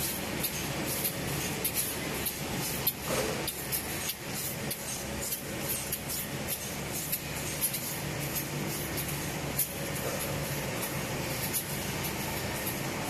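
Automatic UV varnishing and calendering line running: a steady machine hum and hiss with frequent short clicks as sheets feed along the conveyor and through the rollers.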